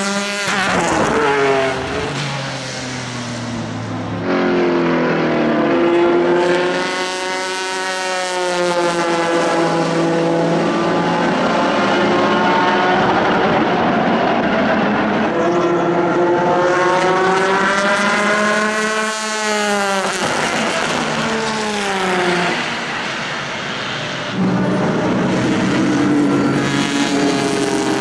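Pilbeam MP93 LMP2 prototype's JPX/Mader V6 racing engine at speed on track. Its pitch rises and falls several times, with a sharp drop at the very start, and it gets suddenly louder near the end.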